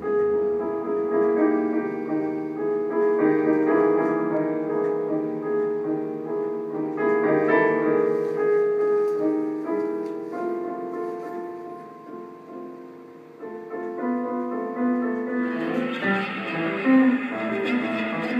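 Improvised piano music: slow, held chords and notes ringing over each other. Near the end a brighter, busier instrumental layer joins in.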